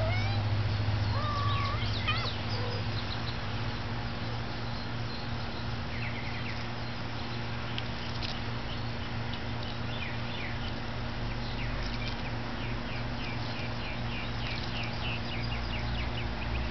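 Birds chirping over a steady low hum, with scattered short high calls and, near the end, a quick run of about four chirps a second.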